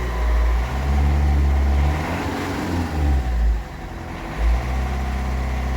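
Ford Figo's engine revved with the throttle, speeding up and dropping back a few times. It runs evenly without misfiring, its failed number 3 fuel injector (code P0203) now replaced.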